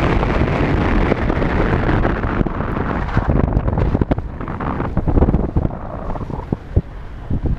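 Wind buffeting a microphone mounted on the outside of a moving Ford Fiesta, with the rumble of its tyres on a snow-covered road. The noise fades as the car slows, and a few short knocks come in the last couple of seconds.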